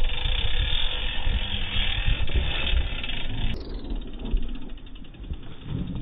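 Mountain bike on a trail: a steady rush of riding noise, which cuts out about three and a half seconds in, leaving the rear hub's ratchet ticking rapidly and evenly as the bike freewheels.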